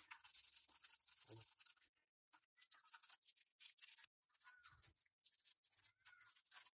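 Faint scrubbing of a small toothbrush-like brush on the metal exhaust-manifold heat shield, in short strokes with brief gaps between them.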